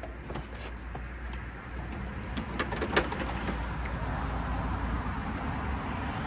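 Pigeon cooing over a steady low hum, with a few sharp clicks and knocks about two and a half to three seconds in, from an electrical cable being handled.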